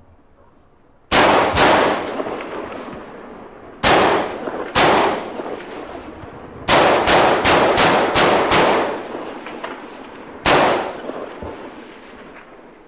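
Rifle fired about a dozen times: two single shots, then two more, then a rapid string of about seven, then one last shot. Each shot rings out with a long echo.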